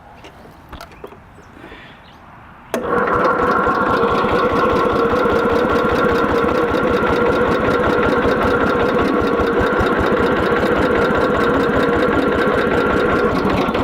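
Small Craftsman riding mower engine cranked by its electric starter for about eleven seconds, starting suddenly about three seconds in: a steady whine over fast, even chugging that never catches. This is a no-start with the kill wire removed, and the long cranking floods the engine.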